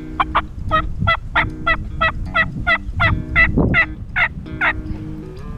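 Wild turkey calling: a long run of about fourteen short, sharp yelping notes, evenly spaced at about three a second, over a low rush of wind.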